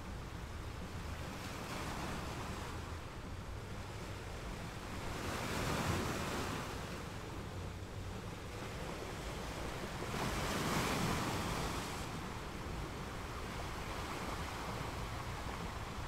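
Ocean surf washing onto a shore: a steady rush of water that swells louder twice, about six seconds in and again about eleven seconds in, as waves break.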